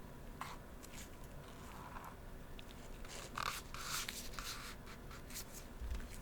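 Close-miked handling sounds: light clicks, taps and short scrapes, clustered most densely in the middle, over a faint steady background hiss.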